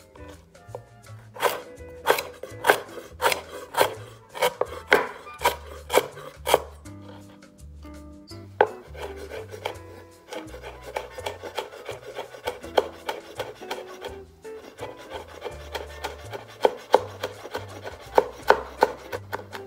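Chef's knife chopping on a wooden cutting board: steady sharp chops about two a second, then after a short pause a quicker run of lighter chops as bird's eye chillies are minced.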